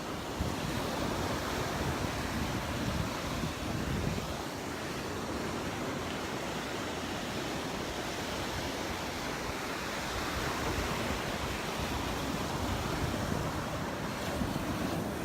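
Ocean surf washing on the beach in a steady hiss, with wind rumbling on the microphone, heaviest in the first few seconds.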